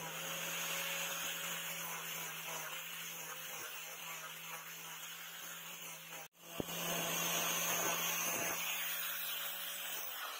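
Electric angle grinder with a sanding disc running at speed as it sands a small hardwood block: a steady motor whine over a low hum. The sound cuts out for a moment about six seconds in and starts again.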